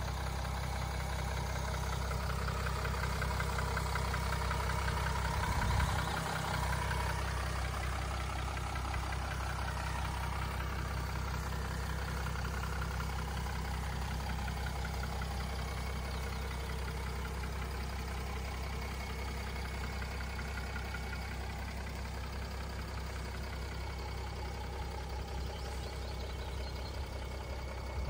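Mercedes-Benz E350d BlueTec's 3.0-litre V6 turbodiesel idling steadily, with a brief low bump about six seconds in.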